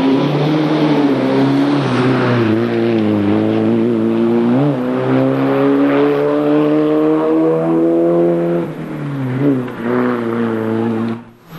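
Competition car engine at full throttle through a slalom course: the revs climb steadily, drop briefly, then climb again, and the sound cuts off abruptly near the end.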